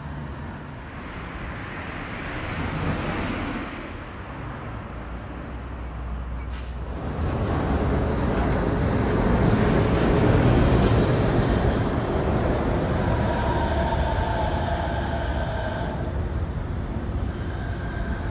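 Chiba Urban Monorail suspended train passing. Its noise builds from about a third of the way in, is loudest around the middle, then eases off, with a faint whine near the end.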